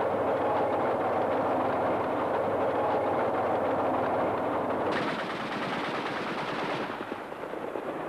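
Tank moving along a road, heard from on top of it: its engine running under a dense, continuous clatter of tracks. About five seconds in, a brighter hissing noise joins for about two seconds.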